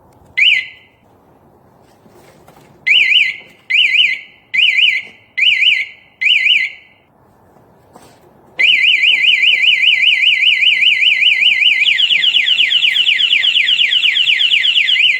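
Hardwired motorbike anti-theft alarm's siren going off: a single chirp, then five short warbling bursts, then a continuous high warbling siren that switches to a faster, wider sweep near the end.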